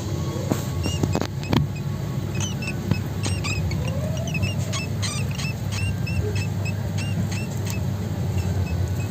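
Steady low background rumble, with a run of short, high, upturned chirps about one or two a second from about two seconds in until about seven and a half seconds, and a few clicks near the start.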